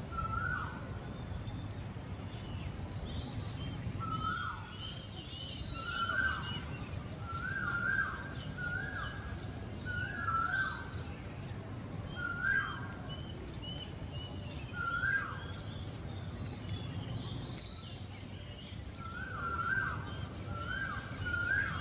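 A bird calling repeatedly, short calls that each dip in pitch, coming every second or two in clusters, with fainter higher chirps, over a steady low background rumble.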